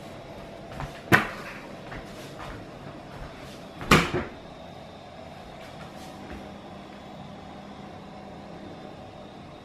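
Two sharp knocks about three seconds apart, the second a heavier double clunk, over a faint steady hum.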